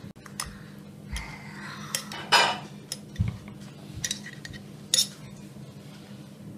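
A metal spoon clinking and scraping against glass jars and crystal dessert bowls as jam is spooned out: a handful of separate clinks, the loudest about two seconds in, over a steady low hum.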